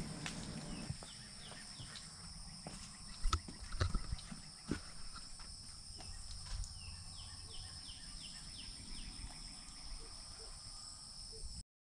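Insects droning steadily in a high, even chorus at two pitches. A few soft low thumps come around three to five seconds in, and a run of short falling chirps comes about halfway through. The sound cuts off suddenly just before the end.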